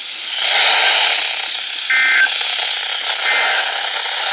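Noisy NOAA Weather Radio reception: a steady static hiss. About two seconds in, and again a second later, come short bursts of two-tone data, the SAME end-of-message code that closes the special marine warning just read out.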